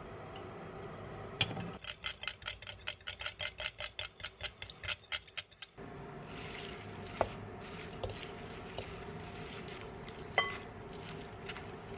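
Utensil beating rapidly and evenly against a dish, about five strokes a second for some four seconds, as in whisking. Then two single clinks, the second one ringing briefly.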